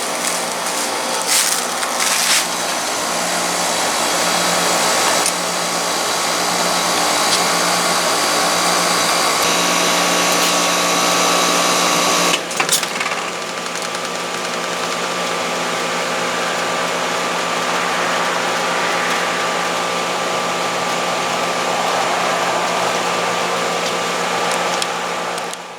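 2020 ICP Performance five-ton heat pump running in heat mode, its Copeland scroll compressor humming steadily under fan hiss. About twelve seconds in there is a brief sharp disturbance and the sound shifts, running on slightly quieter and less hissy.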